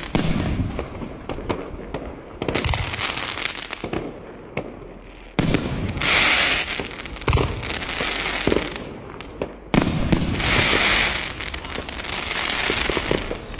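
Fireworks going off: several sudden loud bangs, each followed by a second or two of crackling hiss, with scattered smaller pops in between.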